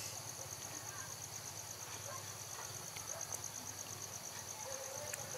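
Faint, steady high-pitched insect trill, a rapid even pulsing, over a low steady hum.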